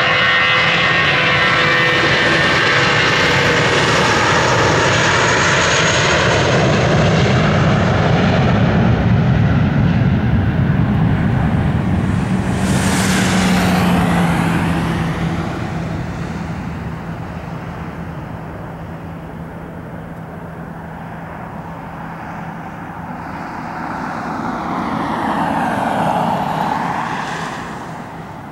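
Airbus A320 jet engines at takeoff power: a loud, steady noise with a high whine for the first half. The sound sweeps about halfway through and drops away as the jet moves off down the runway. It swells again as the plane lifts off and climbs away, then fades near the end.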